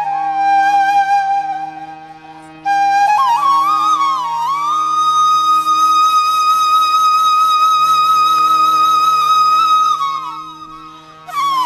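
Background music: a flute playing a slow melody with sliding ornaments and long held notes over a steady low drone. The melody fades away twice and each time comes back in abruptly with a new phrase.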